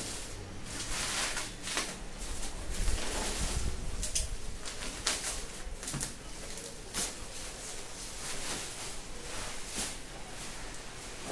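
Plastic bubble wrap and packing film crinkling and rustling in irregular bursts as they are pulled off a keyboard and handled.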